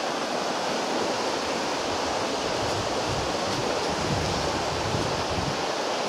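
Shallow rocky river running over stones and small rapids: a steady rushing hiss of water.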